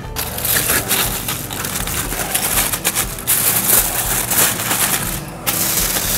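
Aluminium foil being crumpled and pressed by hand as it is wrapped tightly around a leg of lamb: a continuous crinkling crackle, with a short pause about five seconds in.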